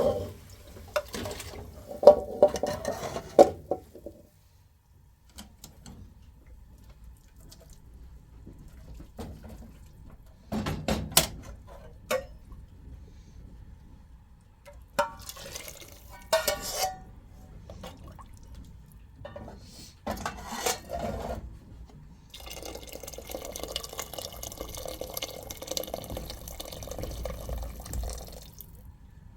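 Pots, dishes and cutlery clinking and knocking in several short bouts, then a steady stretch of liquid being poured or filling a vessel over the last several seconds.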